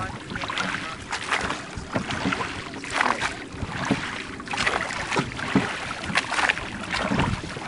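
Wooden oars of a Viking longship replica working in the water: an uneven run of splashes and knocks as the crew rows.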